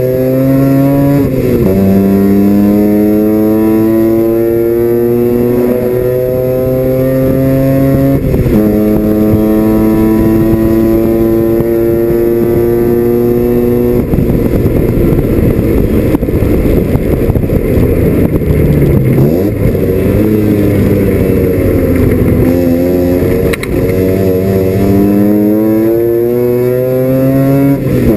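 Mazda RX-7 FC's 13B rotary engine heard from inside the race car's cockpit, pulling hard with its note rising through the revs. The pitch drops suddenly at upshifts about a second in and again around eight seconds in. Around halfway the steady note breaks up into a rough, uneven sound for several seconds, then climbs in pitch again under acceleration near the end.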